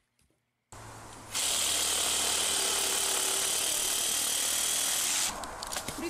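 A handheld power drill starts up a little under a second in, comes to full speed and runs steadily for about four seconds, then stops, leaving a few light clicks and knocks.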